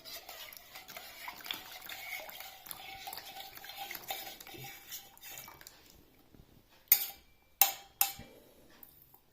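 Spoon stirring flour and water in a bucket to start a bread dough, with a continuous scraping and clinking. This is followed by three sharp knocks about seven to eight seconds in, like the spoon struck on the bucket.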